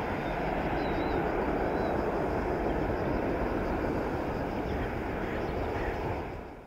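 Boeing 737-700 BBJ's CFM56-7 turbofan engines during climb-out after takeoff: a steady jet roar from behind the departing aircraft, fading out near the end.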